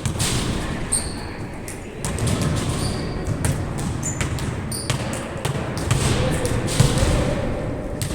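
A ball bouncing repeatedly on a hard court, as a basketball does when dribbled in play, with sharp irregular knocks over a background of players' voices.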